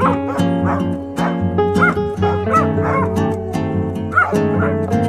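Background music with plucked-string notes and a steady bass line, overlaid with short, arched high-pitched sounds.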